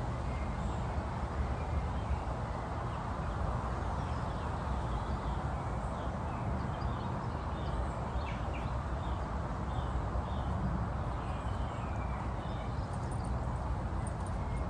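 Steady outdoor background rumble and hiss, with soft rustling of green nettle stems being split and stripped by hand. Faint short bird chirps come and go through the middle.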